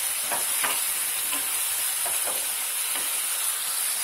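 Minced-meat masala sizzling in a nonstick frying pan as it is fried down, with a wooden spatula stirring and scraping through it in several irregular strokes over a steady frying hiss.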